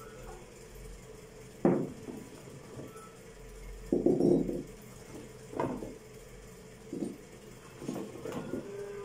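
Green olives being handled in a plastic bowl and packed into a glass jar: a handful of short, dull knocks and clatters, with a longer clattering spell about four seconds in.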